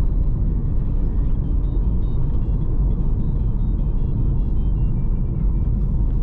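Steady low road rumble of a car driving, heard from inside the cabin, with faint music playing over it.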